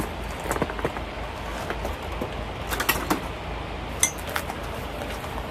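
Light clinks and knocks of dishes and utensils being handled, with one small metallic clink about four seconds in that rings briefly, over a steady low hum.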